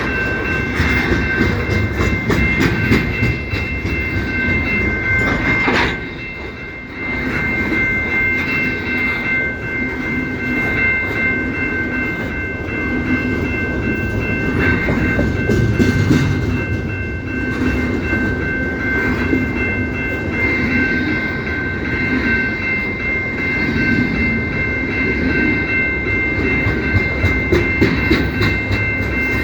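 CP Rail train rolling past, its wheels clacking over the rail joints. A steady high-pitched ringing of several tones runs under it throughout, with a brief drop in loudness about six seconds in.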